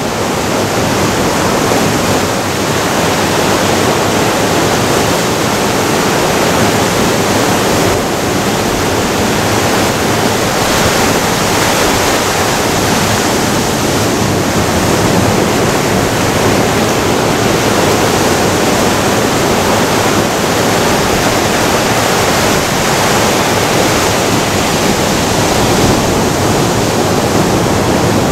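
Ocean surf breaking on a rocky shore: a loud, steady wash of waves with no pause.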